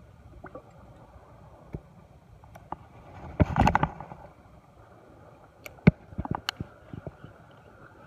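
Ultralight spinning rod and reel in use: a brief loud rushing swish about halfway through as the rod swings out in a cast, then a scattering of sharp clicks from the reel as winding begins.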